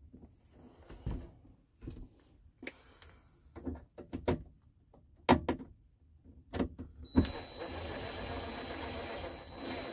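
Cordless drill-driver running a screw into an RV air-conditioner's plastic ceiling shroud. Scattered clicks and knocks of the bit and screw being handled come first, then about seven seconds in the drill motor runs steadily with a high whine for about three seconds.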